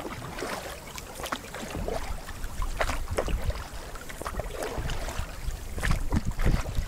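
Kayak paddles dipping and splashing, with water slapping against the hull. Wind buffets the microphone, growing stronger about two seconds in and again near the end.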